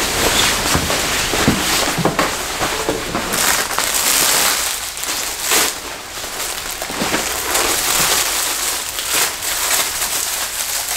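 Nylon salon cape rustling and swishing as it is pulled off and bunched up by hand, along with the crinkling of a plastic package.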